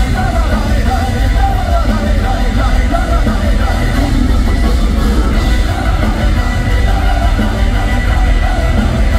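Medieval folk-metal band playing live at full volume through a concert PA: distorted guitars, heavy drums and bass, with a singer's voice over them.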